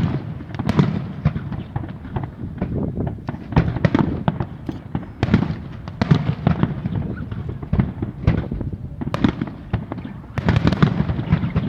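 Aerial fireworks display: shells bursting in quick succession, many sharp bangs with low rumbling booms and crackling between them, thickest near the end.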